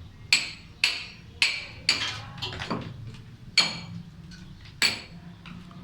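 Hand hammer striking a steel chisel to chip away concrete: six sharp, ringing metallic blows, four in quick succession, then a pause before two more.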